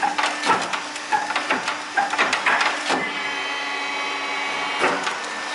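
Workshop sounds: a quick run of clicks and knocks, then a steady machine whine with several tones held for about two seconds, and one more knock near the end.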